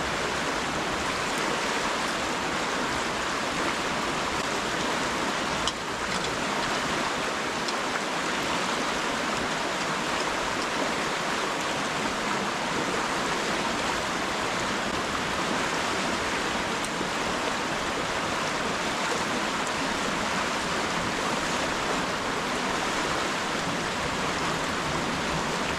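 Steady rush of a flowing river, with one brief click about six seconds in.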